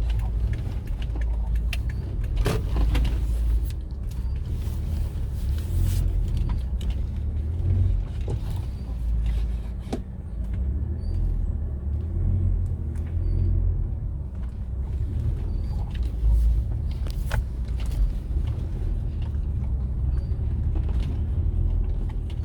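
A vehicle driving over a rough, unpaved road under construction: a steady low rumble, with a few short knocks as it jolts over bumps.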